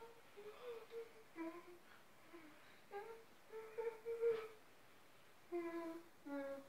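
A young child humming a wandering tune to himself in a string of short notes that step up and down in pitch, with pauses between phrases.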